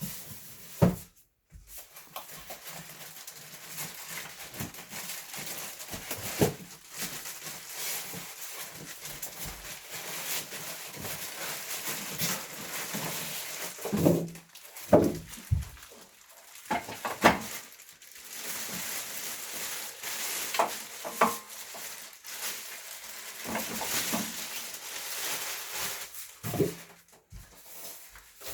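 Packaging and parts being handled during the unboxing of a planetary mixer: ongoing rustling and rubbing with scattered knocks and short squeaky scrapes.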